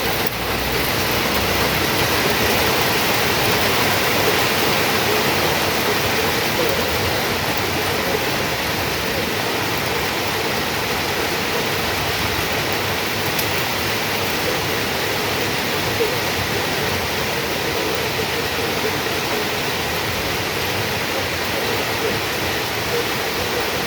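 Heavy rain falling steadily, a dense even rushing hiss.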